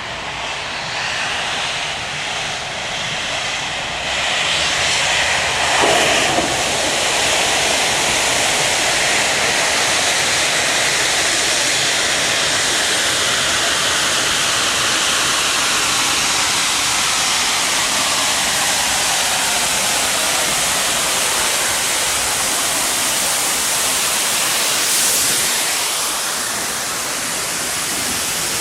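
Steam locomotive giving off a loud, steady hiss of steam, swelling briefly twice.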